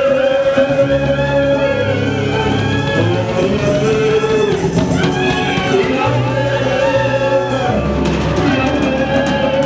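Live church worship music: a man sings long held, gliding notes into a microphone over a band with a drum kit and a stepping bass line. Cymbal strokes come in near the end.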